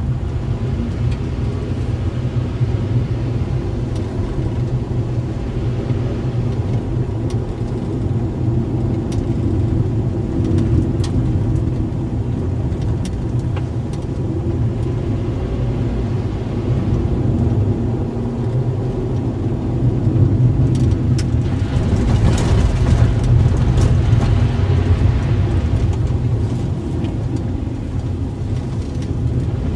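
Car engine running and tyre noise heard from inside the cabin while driving slowly, a steady low hum. A louder rush of noise swells for a few seconds near the end.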